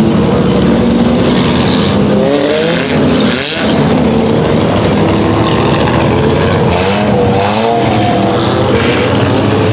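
A field of dirt-track pure stock and four-cylinder race cars lapping the oval together, their engines running steadily, with pitch rising and falling as individual cars rev and pass. The cars are running in the wet track during a rain delay.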